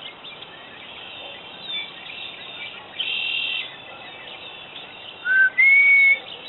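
Red-winged blackbirds singing: repeated chirps and buzzy trills, with one strong trill about three seconds in. Near the end come two clear whistled notes, a short lower one and then a longer, steady, higher one; these are the loudest sounds.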